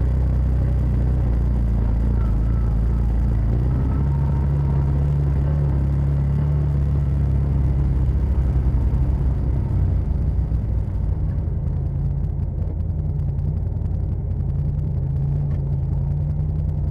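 Side-by-side UTV engine running steadily as it drives along a dirt trail, its low note rising and falling a little with the throttle.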